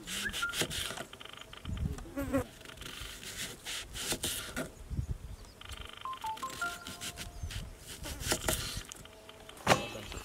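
Kitchen knife slicing through a red onion into rings on a wooden board, several irregular cuts, each stroke ending on the wood. An insect buzzes on and off between the cuts.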